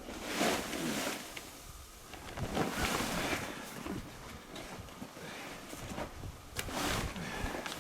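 Heavy canvas tent cover rustling and swishing in irregular surges as it is pulled and dragged over a tent frame.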